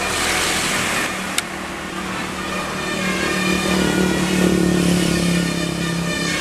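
Road vehicle engine running as traffic passes close by, its steady hum swelling louder past the middle, with a noisy rush at the start and one sharp click about a second and a half in.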